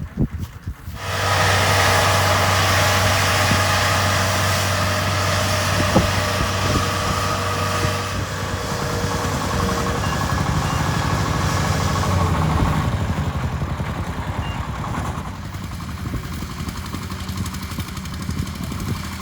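Kubota DC70 Plus combine harvester's diesel engine running steadily, working in a rice crop. It comes in abruptly about a second in and grows somewhat quieter after about fifteen seconds.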